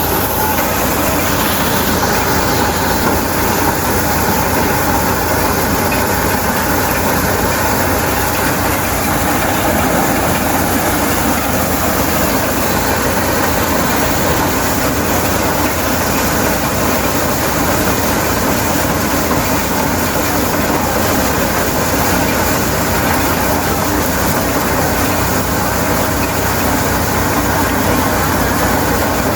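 Tractor-powered corn sheller (maize thresher) running steadily: a loud, constant engine and machine noise that does not change.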